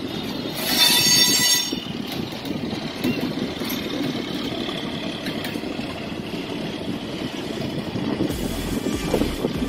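Passenger express train running along the track, heard from an open coach door: a steady rumble of the wheels with wind rush. About a second in, a brief loud high-pitched tone stands out above the rumble.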